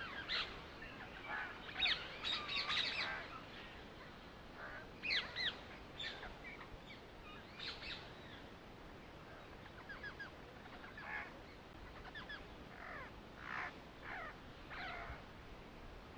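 Birds calling and chirping: short, quick calls in scattered clusters over a faint steady hiss.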